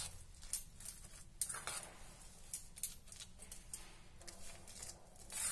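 Metal spoon stirring a stiff paste of ground peas and gram flour in a stainless steel bowl: faint, irregular scrapes and clinks of the spoon against the steel, several a second.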